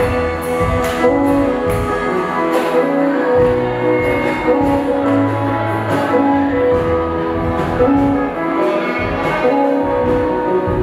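Live worship band playing an instrumental passage of a slow gospel song, a saxophone carrying the melody over keyboard, bass and drums.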